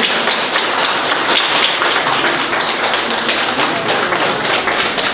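Audience applauding: many people clapping their hands together at once in a dense, steady patter.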